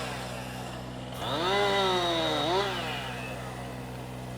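Chainsaw revved once, about a second in: its pitch rises, holds briefly, then drops back to idle. A steady low engine drone runs underneath.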